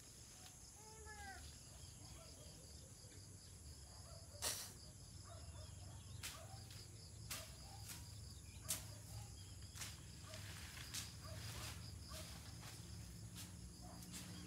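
Faint rural field ambience: insects trilling steadily at a high pitch, a short run of bird chirps about a second in, and several sharp clicks scattered through.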